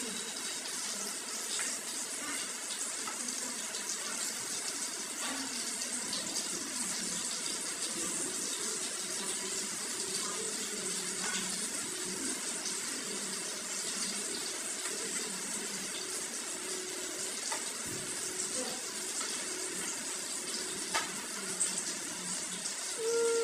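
Hot oil sizzling steadily in a wok as food deep-fries on a gas stove, with a few light clicks of a utensil.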